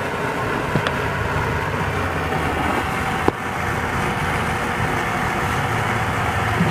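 Homemade used-oil stove burning with its blower: a steady rushing roar with a low hum. Two light clicks come about a second in and a little past the middle.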